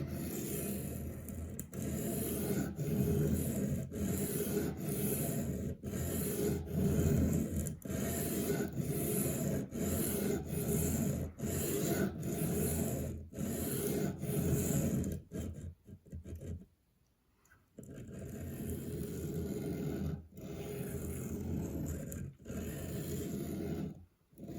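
A 1095 carbon-steel pocketknife blade rasping back and forth on a wet 300-grit diamond sharpening plate, about one stroke a second, with a pause of a couple of seconds about two-thirds of the way in. This is coarse grinding to raise a burr along the edge.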